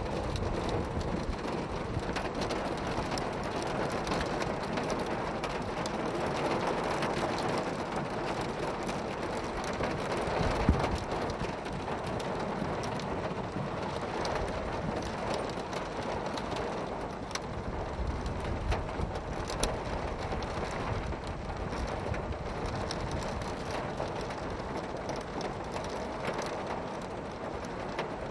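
Heavy rain pelting a car's roof and windscreen, heard from inside the car: a steady, dense downpour with a few sharper knocks, the loudest about ten seconds in.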